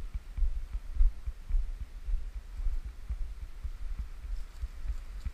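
Low rumble and uneven thuds on a body-worn camera's microphone as its wearer walks over sand, the footfalls jolting the camera.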